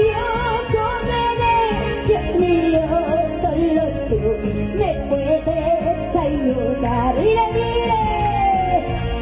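Amplified praise music from a live worship band: a steady beat under a sliding, wavering melody line, without sung words.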